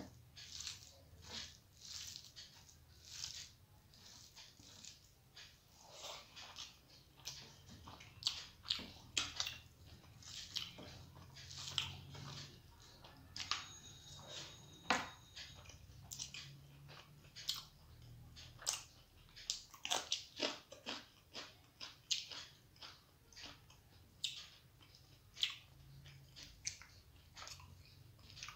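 Close-miked chewing of a person eating rice by hand, with wet mouth clicks and smacks coming irregularly, a few a second.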